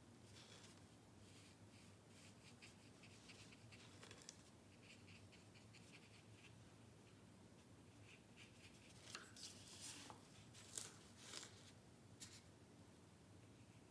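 Faint, scratchy strokes of a watercolour brush on paper, many short strokes in quick succession, with a few louder ones in the second half.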